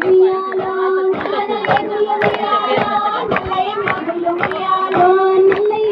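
Women and girls singing a Bathukamma folk song, one wavering melody line, while the dancers clap their hands in time, about two claps a second.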